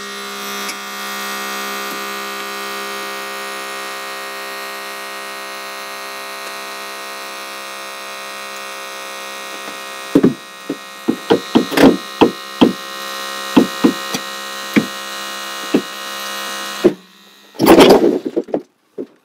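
Holmatro battery-powered hydraulic rescue cutter running with a steady electric whine while cutting through a car's roof pillar. From about ten seconds in come a series of sharp cracks and pops as the metal gives. The motor stops near the end, followed by a loud crunch.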